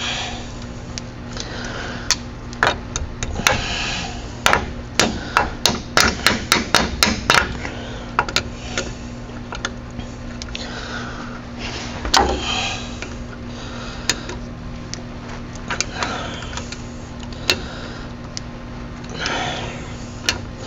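Hammer blows while freeing a tie rod end or steering knuckle: a quick run of about fifteen strikes in five seconds, then a few single knocks. A steady low hum runs underneath.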